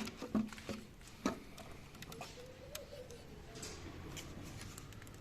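Scattered light clicks and knocks, about one a second, of tools and engine parts being handled during an engine teardown.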